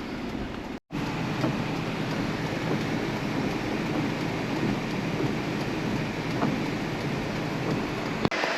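Steady running noise of a road vehicle, engine and road rumble, with abrupt edit cuts about a second in and near the end.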